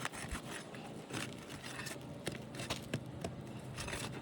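Asphalt shingle tab being pried up from its sealant strip, the bond releasing in a run of irregular small pops and crackles with some scraping. The pops show a dry, brittle seal.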